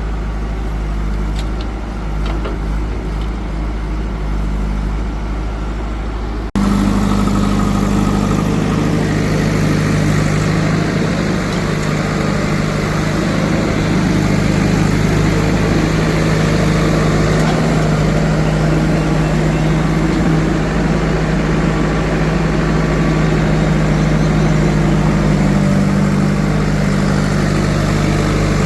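Diesel engine of heavy farm machinery running steadily. About six seconds in it cuts abruptly to a louder, busier stretch of the engine working.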